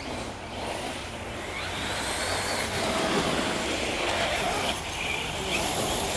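Electric RC cars running fast over leaf-covered ground: a motor whine with tyres churning through leaves, loudest about three to four seconds in as one car passes close by.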